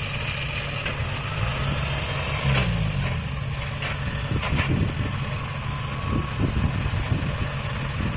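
Diesel engine of a tracked rice combine harvester running steadily, with a brief shift in pitch about two and a half seconds in and several sharp knocks over it.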